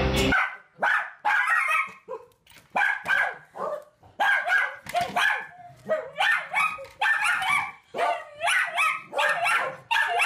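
A dog barking over and over in short, sharp barks, about two to three a second, with brief gaps.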